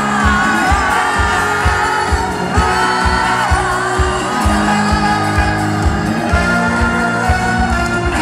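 Live pop concert over a loud PA: a lead vocal sung over a full band with a steady kick-drum beat.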